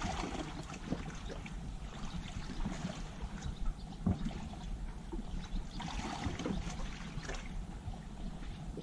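Small sea waves lapping and trickling against the shore, swelling now and then, with a low wind rumble on the microphone.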